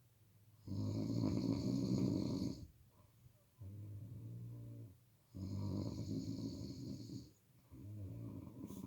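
A sleeping person snoring loudly: two long snores of about two seconds each, each followed by a shorter, quieter snore, at a slow breathing rhythm.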